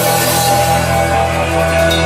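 Recorded rock music: an instrumental passage of held notes, no singing.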